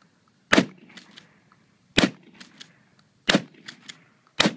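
Shotgun fired four times in quick succession, a shot about every second and a half, each blast followed by a few fainter sharp ticks.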